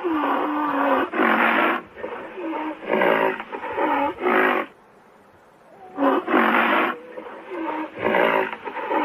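Rhinoceros calling: a run of short, harsh, pitched calls in quick succession, with a pause of about a second midway.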